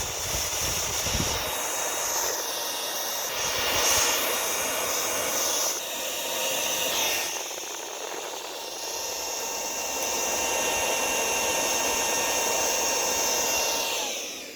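Electric air blower running, blowing dust and grime out of an antique typewriter's works: a steady rushing hiss with a faint motor whine. It changes in strength as it is moved about and cuts off near the end.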